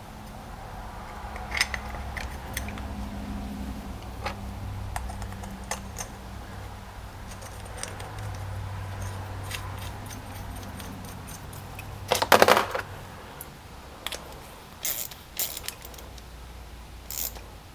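Small metal carburetor parts being handled on a workbench during reassembly of the float and needle valve: scattered light clicks and clinks, a louder clatter about twelve seconds in, and a few sharp clicks near the end.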